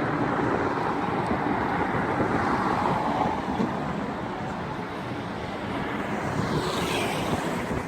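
Outdoor city traffic noise: a steady hum of road traffic and street bustle, with a louder swell of noise near the end.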